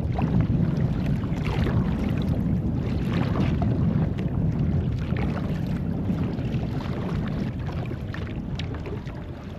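Kayak paddle blades dipping and splashing in seawater, with wind rumbling on the microphone. It grows fainter over the last few seconds.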